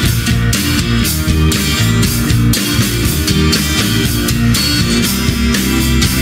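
Background rock music: a drum kit with a steady beat and guitar.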